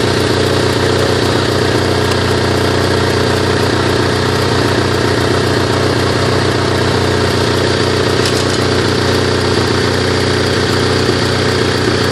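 Onan NH 6.5 kW gasoline generator set running steadily at a constant speed. It is running but not putting out any power.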